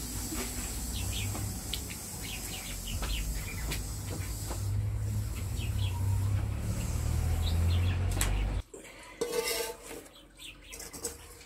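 Small birds chirping in short, repeated calls over a low rumble; the rumble cuts off abruptly about eight and a half seconds in.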